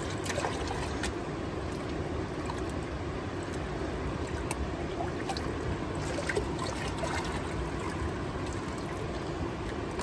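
Black plastic gold pan being swirled and shaken in a shallow river, its water sloshing, with scattered light ticks of sand and gravel against the pan over the steady sound of the stream.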